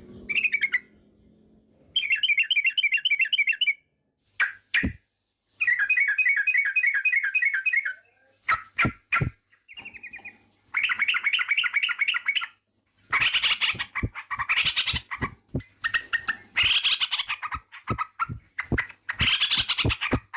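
Yellow-vented bulbul (trucukan) singing: rapid, bubbling chattering phrases of quick repeated notes, each burst lasting a second or two with short pauses between. The phrases come thicker and louder in the second half.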